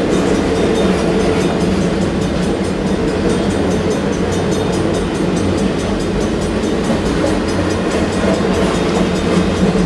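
Autorack freight cars of a long manifest train rolling past, a steady rumble of steel wheels on the rails with a regular clicking over the rail joints.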